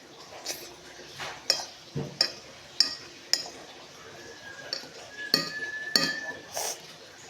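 Metal cutlery clinking against a plate while eating: about ten sharp, irregular clinks with a short high ring.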